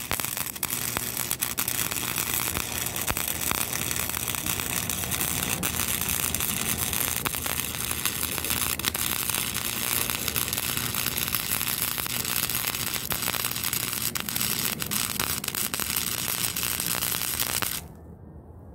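Wire-feed welder arc running continuously with a steady dense crackle for about eighteen seconds as one long bead is laid on the steel fork blades, then cutting off near the end. It is a continuous weld rather than the short tack welds that were planned.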